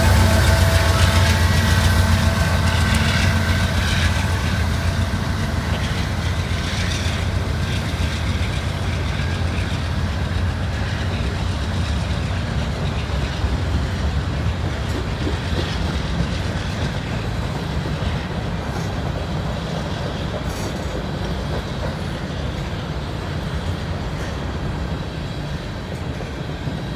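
Freight train passing close by. The diesel locomotives' deep engine hum and whine fade over the first few seconds, then a string of covered hopper cars rolls past with a steady wheel roar and occasional clacks over rail joints, slowly growing quieter.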